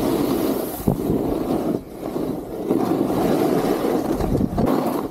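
Snowboard sliding and scraping over snow during a run, with wind rushing over the microphone. A steady rough noise that eases briefly about two seconds in.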